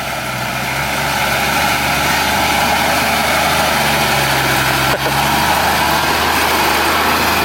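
Off-road 4x4 vehicle's engine running with a dense mechanical noise. It grows louder over the first second or two, then holds steady, with one brief knock about five seconds in.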